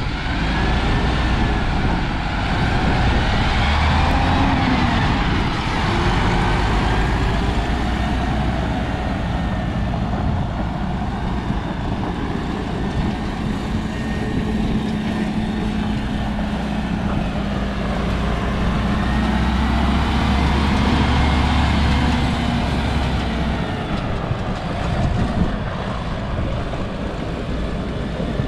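Diesel engine of a MAN TGA 40.400 6x4 truck tractor, a six-cylinder, running steadily as the truck drives around, its pitch slowly rising and falling with speed.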